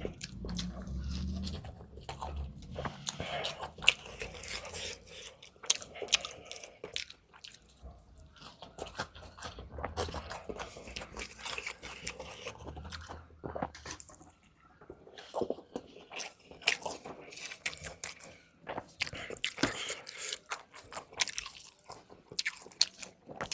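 Close-miked eating: repeated bites and chewing of crunchy food, with irregular crackling crunches and wet mouth sounds.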